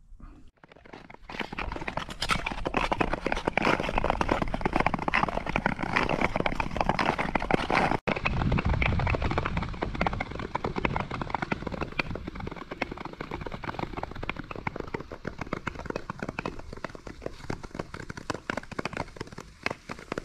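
Skate blades scraping and crackling across natural lake ice in a dense, continuous hiss of small clicks, with a brief dropout about eight seconds in.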